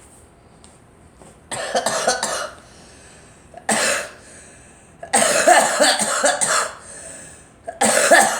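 A girl coughing in repeated bouts: a short fit, then a single cough, then a longer run of coughs, and another fit starting near the end.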